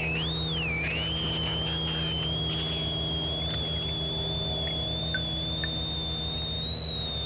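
A steady electrical hum and a high-pitched whine, the whine dipping in pitch twice about a second in, with faint swishing and ticks of a pleated oil filter element being rinsed in a bucket of solvent.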